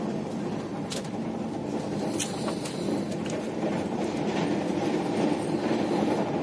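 Express train coach running at speed: a steady rumble of wheels on the rails, with a few sharp clicks about one and two seconds in.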